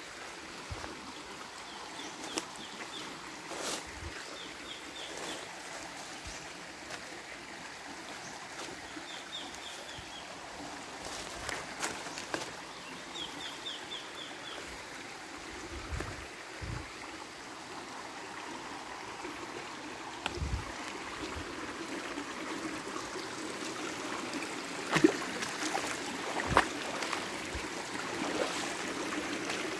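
Shallow river running over rocks with a steady rushing trickle, over which come scattered knocks and rustles of footsteps on stones and dry leaves, the sharpest about 25 and 26 seconds in. A bird gives short runs of quick high chirps a few times in the first half.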